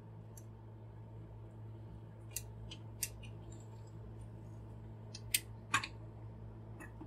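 Light clicks and taps of plastic toy-figure parts and a small precision screwdriver as a screw is worked into the figure. Two louder clicks come close together about five and a half seconds in, over a steady low hum.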